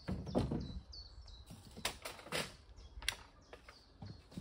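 A few knocks and rustles as a wooden pole and a handsaw are handled and set down, while a bird chirps repeatedly in short falling notes, about three a second.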